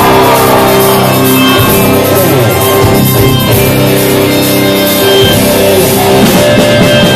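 Live rock band playing loud: electric guitar chords held over bass guitar and drums, an instrumental passage with no vocals.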